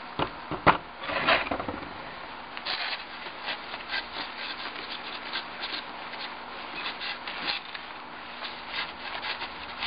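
Repeated scratchy rubbing strokes, several a second, as the lead-soldered edges and glass of a small display case are polished and wiped by hand. A couple of sharp clicks about half a second in.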